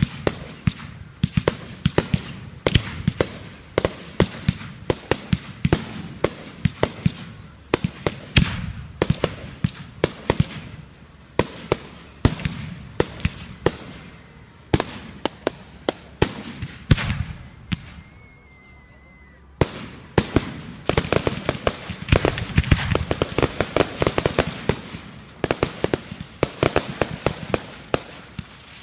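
Fireworks going off in rapid succession: a continuous run of sharp bangs and crackles, with a short lull about two-thirds of the way through where a faint thin whistling tone is heard, then an even denser barrage of cracks.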